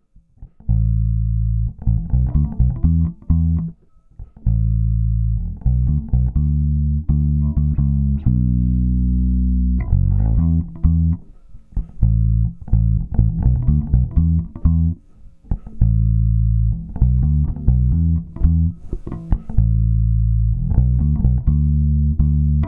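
Electric bass guitar playing a line of low, mostly held notes with short breaks between phrases, heavily compressed through a dbx 164 compressor in a fold-back setup, the output of one channel fed back into the other.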